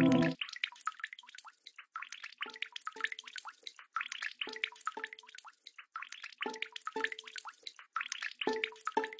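Sustained ambient music cuts off abruptly at the start. Water dripping follows: a dense patter of tiny high drips, with a pair of deeper, pitched plops repeating evenly every two seconds, like a looped drip passage in an ambient track.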